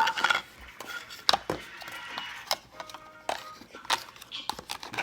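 Scattered light clicks, knocks and clinks of slime-kit containers and parts being handled and set down.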